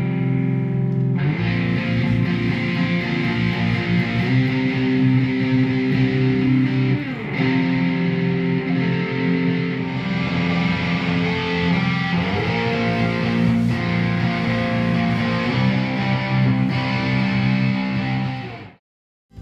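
Electric guitar playing held rock chords, sliding from one to the next a few times, then stopping suddenly near the end.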